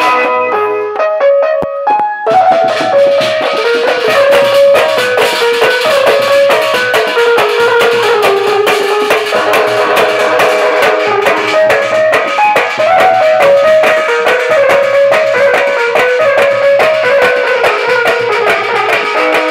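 Marfa band music: frame drums beaten in a fast, dense rhythm under a loud melody played through a loudspeaker. The drumming drops out for about two seconds near the start, then comes back in.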